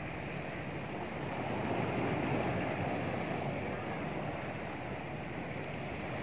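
Sea waves washing against a rock breakwater, a steady rush that swells a little about two seconds in, with wind buffeting the microphone.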